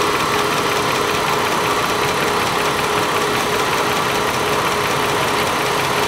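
2008 Chevy Caprice engine idling with the air conditioning on, a steady running noise with a constant hum through it, while the A/C system is being charged with refrigerant at low engine speed.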